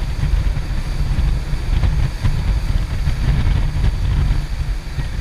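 Motorboat's outboard motor running at speed while towing a tube, drowned under a heavy, uneven rumble of wind buffeting the microphone, with the hiss of the churning wake above it.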